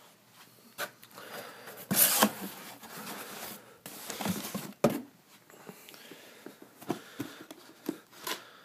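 Cardboard shipping box being handled and opened by hand: irregular rustling and scraping of cardboard with several sharp knocks, the loudest about two seconds in.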